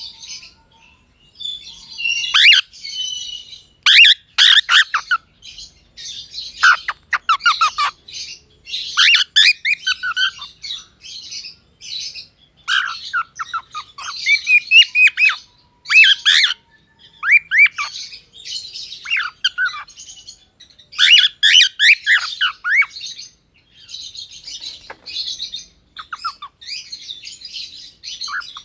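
Gray cockatiel calling: a continuous run of short, high chirps and whistles, interspersed with squawks, with only brief pauses.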